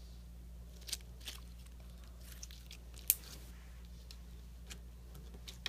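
Slime mixed with beads and buttons being squeezed and pressed, giving scattered sharp clicks and crackles, the sharpest about three seconds in, over a low steady hum.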